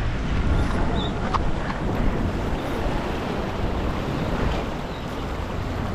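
Small waves washing and splashing against jetty rocks, with wind buffeting the microphone in a steady low rumble.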